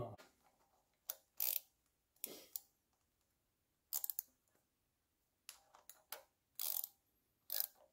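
Ratcheting wrench clicking in short, faint bursts as a nut is turned on a small engine, including one quick run of several clicks about four seconds in.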